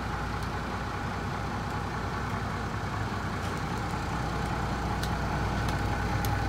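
Heil 5000 rear-loader garbage truck running steadily while its hydraulic packer blade cycles through a hopper of Christmas trees: a continuous engine drone with a faint steady whine, and a few faint clicks near the end.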